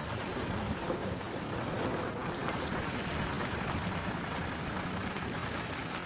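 Wind buffeting a phone's microphone: a steady rushing noise, heaviest in the low end.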